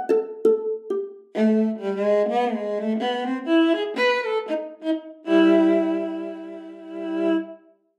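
Samplemodeling's virtual viola, a sample-modelled instrument played from MIDI. A few short detached notes give way to a bowed legato phrase that climbs and falls, then a chord of several notes is held for about two seconds and stops just before the end.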